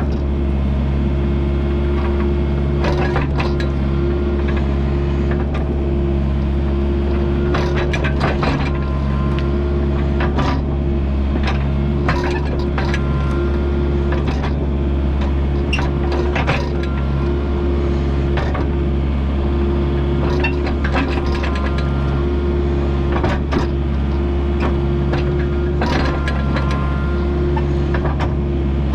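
Kubota U55-4 mini excavator's diesel engine running steadily under work, with frequent short knocks and clatter as it digs and moves dirt.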